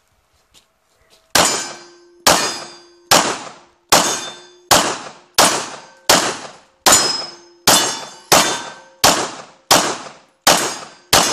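Semi-automatic pistol fired in a steady string of fourteen shots, about one every three quarters of a second, starting a little over a second in. A steady ringing tone lingers after many of the shots.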